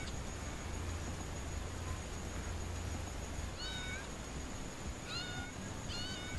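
A kitten swimming in a river mewing: three short high-pitched cries a second or so apart in the second half, over a steady low rumble.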